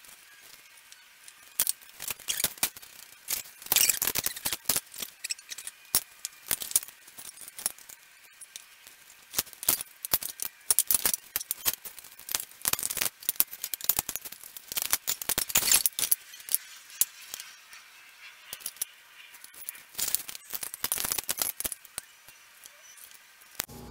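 Wooden boards being handled and pressed together and a one-handed bar clamp being tightened on them: an irregular string of sharp clicks, knocks and rattles.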